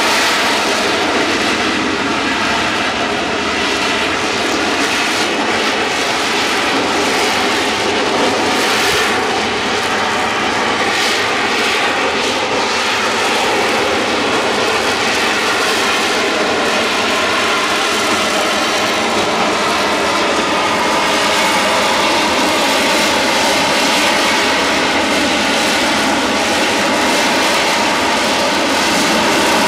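Harrier jump jet hovering, its Rolls-Royce Pegasus vectored-thrust turbofan giving a loud, steady jet roar with a whine that wavers slightly in pitch.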